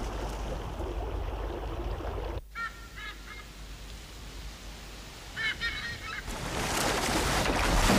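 Waterbirds give short honking calls in two brief bursts. Near the end a swelling rush of splashing water rises as a crocodile lunges up out of the river.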